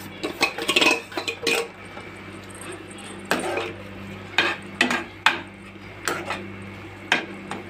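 Metal spoon scraping and clinking against a steel plate and a pan as fried breadcrumbs are tipped into sugar syrup and stirred: a quick run of clicks in the first second or so, then sharp single clinks every half second to a second. A steady low hum runs underneath.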